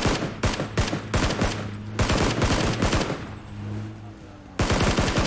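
Video-game automatic gunfire: rapid bursts of shots, a pause of about a second and a half about three seconds in, then another burst near the end.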